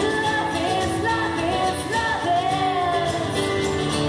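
A female singer's voice carrying a melody over acoustic guitar in a live acoustic pop performance.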